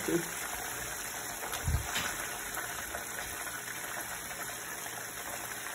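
Breaded tilapia fillets shallow-frying in hot oil in a pan: a steady sizzle and bubbling, with a brief knock about two seconds in.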